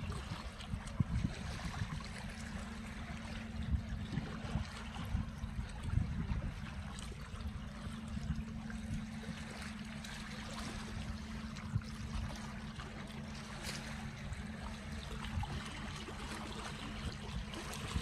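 Small sea waves lapping and splashing gently against shoreline rocks, an irregular watery wash, over a steady low rumble.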